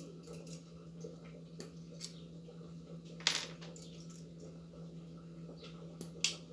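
Pliers snipping galvanized wire: two sharp metallic clicks, one a little over three seconds in and one near the end, with fainter ticks of the wire being handled between them.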